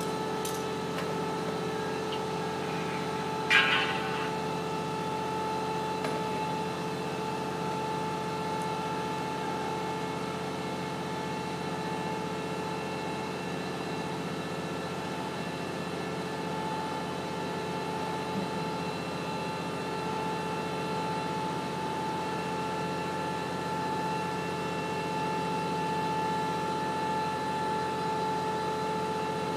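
A motor running steadily at one unchanging pitch. A brief clatter about three and a half seconds in is the loudest moment.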